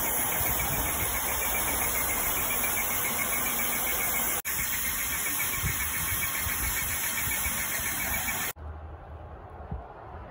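Electric airless paint sprayer running, its pump motor going with the hiss of stain spraying from the gun. The sound breaks off abruptly about four seconds in and again about eight seconds in, and is much quieter after the second break.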